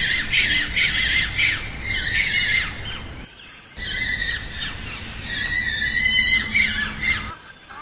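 Spotted hyena giggling ('laughing'): a rapid run of high-pitched, wavering yelps, with a short break about three seconds in, then more calls that stop shortly before the end.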